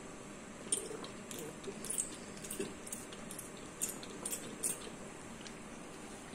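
A pump spray bottle of antiseptic squirting onto a gauze pad: about ten short, quick spritzes over some four seconds, then stopping.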